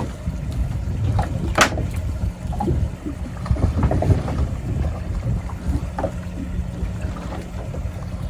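Fishing boat's engine running steadily with wind on the microphone, and a few short knocks, the sharpest about one and a half seconds in.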